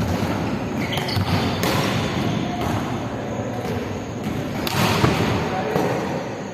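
Volleyballs being struck and bouncing on the court of a large sports hall: several sharp thumps, the loudest about five seconds in, each echoing through the hall, with players' voices in the background.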